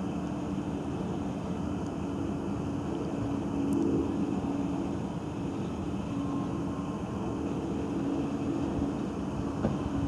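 Distant vehicle noise: a steady low rumble with a constant hum, swelling slightly about four seconds in.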